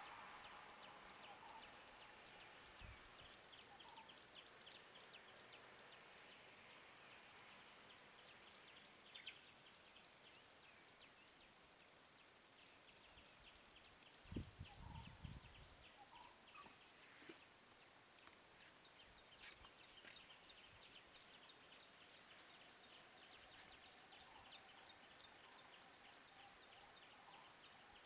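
Near silence: faint outdoor ambience with rapid, faint high chirping, broken by a few low bumps about halfway through.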